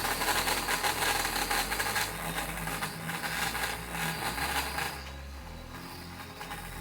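Chainsaw running steadily, a little louder in the first two seconds.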